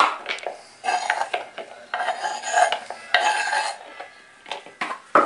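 Kitchen knife scraping sliced jengkol off a wooden cutting board into a metal bowl: three bouts of scraping and clatter as the pieces drop in and the blade knocks against the bowl. There are sharp knocks at the very start and near the end.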